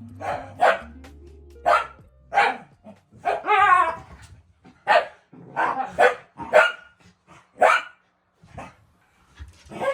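Dog barking repeatedly, about ten short sharp barks with uneven gaps, and one longer wavering yowl about three and a half seconds in.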